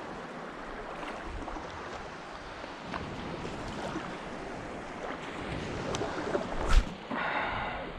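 Wind on the microphone and water lapping around someone wading in shallow bay water, with small scattered clicks. Near the end a single sharp knock, then a short rough noise lasting just under a second.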